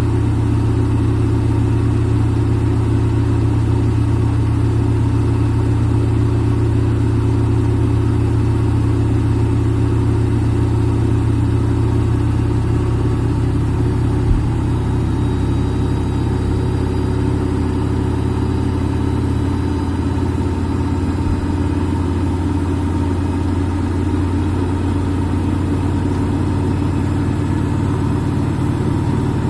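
Front-load washing machine on its spin cycle: the drum and motor give a steady low hum, its tones shifting slightly about halfway through, with one faint click near the middle.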